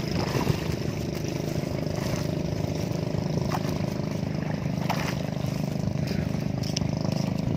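Small boat engine running steadily, a low even drone, with a few light knocks over it.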